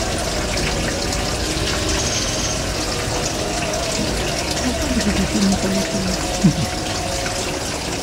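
Steady rushing background noise, like running water, with a few short low hums about two-thirds of the way in and one sharp knock just after them.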